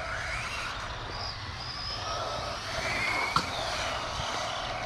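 Wltoys 144010 RC buggy's electric motor whining as it is driven around the circuit, its pitch rising and falling with the throttle. One sharp click about three and a half seconds in.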